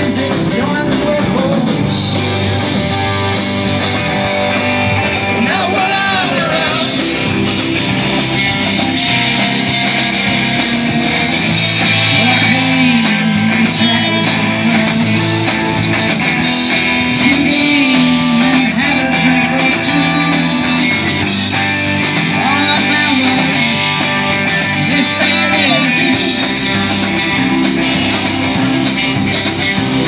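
Live band playing a song through a PA: guitars and drum kit, with a lead singer's voice.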